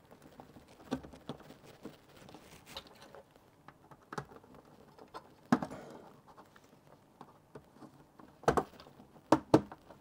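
Plastic pry tool working around the clips of an all-in-one PC's plastic rear cover: scattered clicks and taps, with a few louder clicks near the end as the clips on that side come free.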